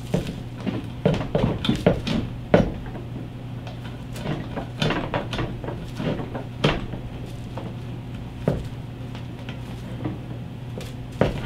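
Irregular light clicks and knocks of a wiring harness and its plug connectors being handled and fed into the open end of a metal handlebar tube, tapping against the tube and the tabletop, over a steady low hum.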